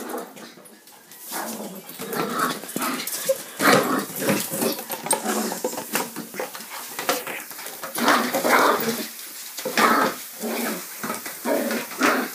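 A small dog making short, excited noises in irregular bursts as it dashes about.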